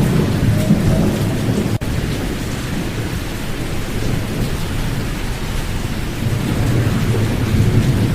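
Pink noise for sleep, filtered to take out the high frequencies: a loud, steady rushing noise heavy in the bass, swelling and rolling like rain with distant rumble. It dips out for an instant about two seconds in.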